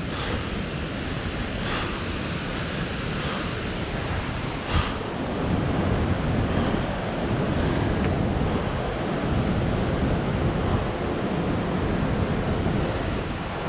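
Steady rushing of falling water from a nearby waterfall, with a few soft footsteps on the dirt trail in the first five seconds.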